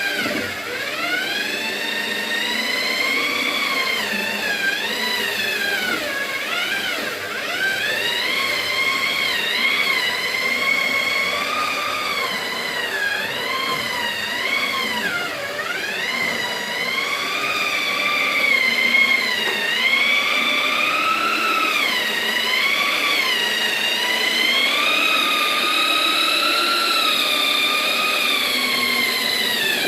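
Electric hand planer running continuously as it smooths wood, its motor whine wavering and dipping in pitch as the blades bite and ease off.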